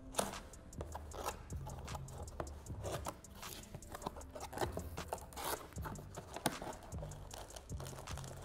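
Cardboard retail box being opened by hand: the end flap pulled free and the inner cardboard carton slid out, giving irregular scrapes, taps and rustles.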